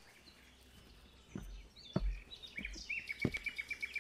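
Outdoor ambience with birds chirping; from about two and a half seconds in, one bird gives a rapid, even trill of short high notes. In the second half, footsteps thud close by on grass about every half second.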